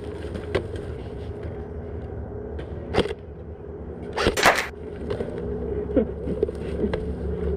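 Airsoft rifle shots: a single sharp crack about three seconds in, then a short rapid burst of shots about a second later, over a steady low hum.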